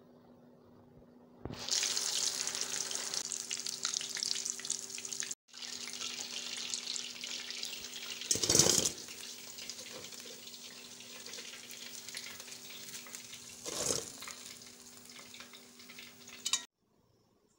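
Kakra pitha deep-frying in a pan of hot oil: a dense, loud sizzle that starts about a second and a half in, breaks off briefly, and cuts off suddenly near the end. A few short knocks of a wire strainer against the pan sound in the second half.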